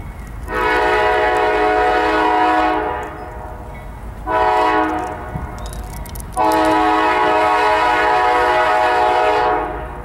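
Kansas City Southern diesel locomotive's multi-chime air horn blowing three blasts (long, short, long) for a grade crossing, over the low rumble of the approaching freight train.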